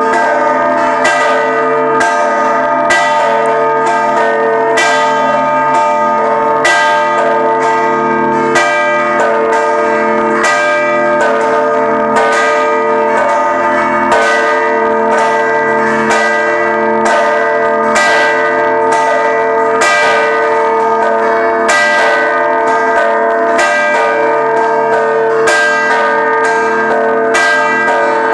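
Ħaż-Żabbar parish church bells ringing a peal for a procession: quick, overlapping strokes on several bells over a continuous wash of ringing tones.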